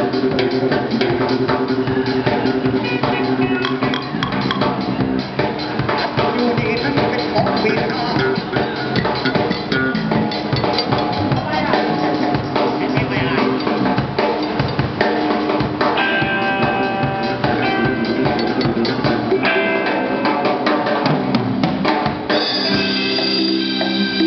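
Live band playing western pop music: a drum kit beating steadily under guitars and bass.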